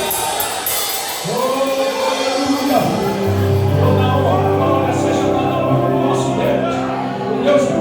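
Live gospel worship band playing a slow song: voices sing long held notes over bass guitar and drums, with cymbal washes in the first second.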